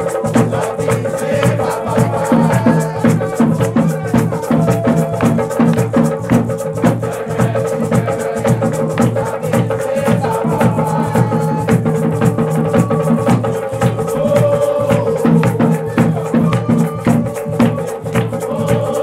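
Percussion-led music: a fast, dense drum rhythm with rattles, over a steady held tone.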